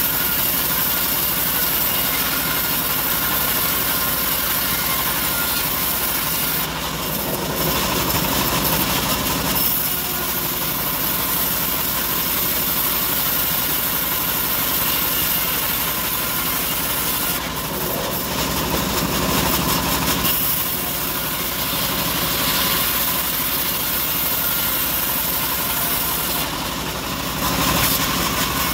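Homemade bandsaw mill running steadily, its blade sawing through a teak plank, with the sound changing a few times as the board is fed and pulled back.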